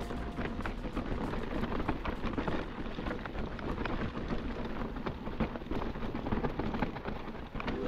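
Mountain bike riding over a rough trail: a dense, steady clatter of tyre crunch and bike rattle, full of small knocks.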